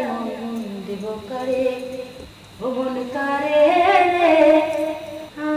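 A woman singing a slow melody in long, gliding held notes, with a short break about two seconds in.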